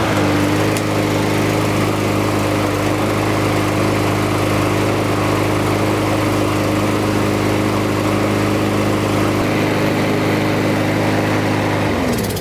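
Lawnmower's small engine running steadily at constant speed on fresh gas after a carburetor cleaning, no longer dying: running really well. Near the end it is shut off and its pitch falls as it winds down.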